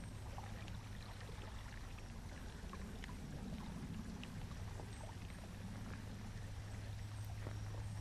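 Outdoor trail ambience: an even hiss with many small irregular crackles and clicks over a steady low hum.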